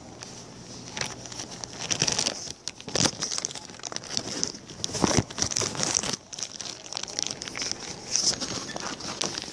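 Paper rustling and crinkling with pencils scratching on a large paper sheet: irregular scratches and small clicks, a few louder than the rest.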